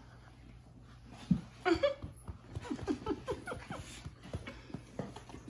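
Labrador retriever puppies whimpering: a quick run of short squeaks, each falling in pitch, mostly in the middle of the stretch, over a steady low hum.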